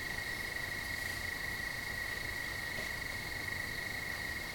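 Crickets chirping in a steady, unbroken high trill.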